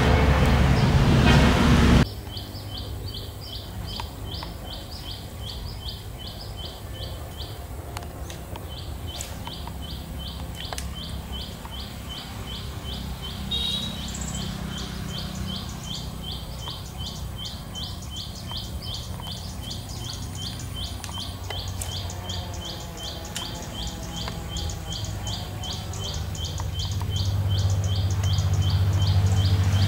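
A loud rushing noise for about two seconds that cuts off abruptly, then short high chirps repeating evenly, about three a second, from a small calling animal, over a low steady hum that grows louder near the end.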